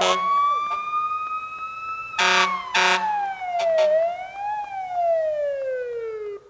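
Electronic intro sound effect: a siren-like synthesized tone that rises slowly, then glides down in pitch with a short rise in the middle, with two loud pulsed chord hits a little over two seconds in. It cuts off abruptly just before the end.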